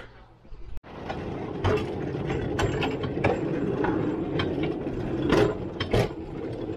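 Hand-operated rail draisine in motion: its lever-and-gear drive rattles steadily, with sharp irregular clicks and clanks. The sound starts abruptly about a second in.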